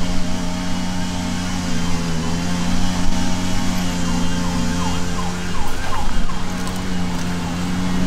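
Honeybees buzzing around an opened hive: a steady, even hum, with a few bees whining past close by about five seconds in.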